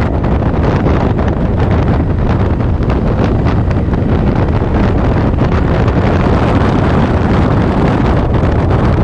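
Steady loud wind rush buffeting the microphone of a camera on a moving motorcycle, with the motorcycle's engine and road noise blended underneath.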